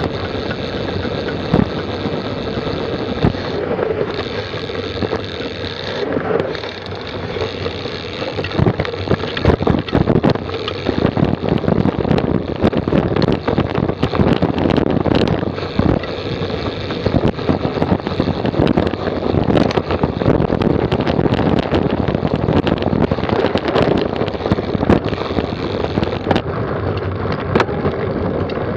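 Mountain bike rolling fast over a rough trail, heard from close to the rear wheel: a continuous rushing tyre and wind noise, broken by frequent sharp rattles and knocks from the chain and rear derailleur bouncing over bumps.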